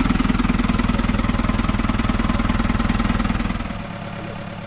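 A farm tractor's engine runs steadily with a fast, even pulse, then drops away and fades about three and a half seconds in.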